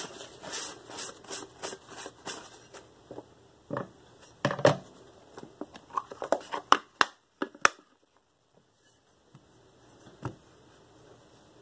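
Sharpening stones being swapped by hand. A quick run of rubbing strokes comes first, then scattered clicks and knocks from the plastic stone case. A single knock near the end comes as the Shapton Pro 1000-grit stone is set into its holder.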